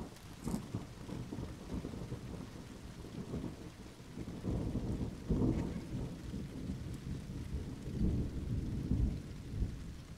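Rolling thunder from a close thunderstorm, rumbling almost without a break. It begins with a sharp crack at the very start, and louder crackling peaks come about five seconds in and again near the end.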